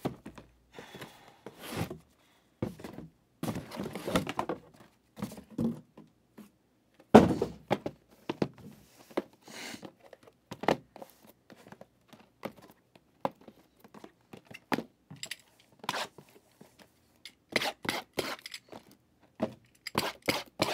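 Cardboard boxes of trading cards being handled and set down on a table: irregular knocks, thuds and scraping rustles, with the loudest thud about seven seconds in.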